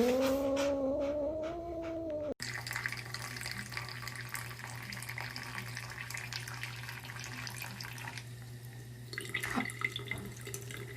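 A single long, drawn-out call that rises at its start and then holds for about two seconds, then stops abruptly. After it, water runs and splashes from a tap over a steady low hum.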